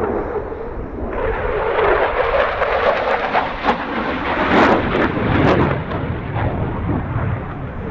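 Belgian Air Force F-16 fighter's single Pratt & Whitney F100 turbofan flying past: a loud jet roar that swells about a second in, with a crackling edge through the middle of the pass, easing a little near the end.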